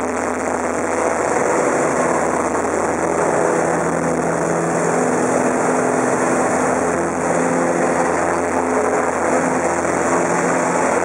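American Champion Super Decathlon's 180 hp Lycoming four-cylinder engine and propeller heard from inside the cockpit, a steady drone with rushing air, under power through an aerobatic roll. It gets slightly louder about a second in, and the engine pitch shifts a little partway through.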